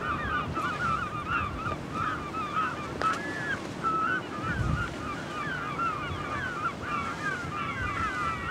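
A flock of birds calling all at once: a dense, unbroken chatter of short, wavering, overlapping calls, with a low rush of noise underneath.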